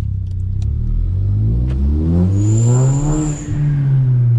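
Turbocharged VW Golf engine accelerating hard, its pitch climbing for about two seconds, with a high whistle near the middle as boost pressure leaks past the makeshift, tape-sealed blow-off valve. The revs dip briefly, then the engine note holds and slowly falls.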